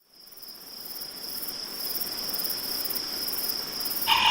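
Crickets chirping in a steady high trill, fading in from silence. A short, louder call breaks in near the end.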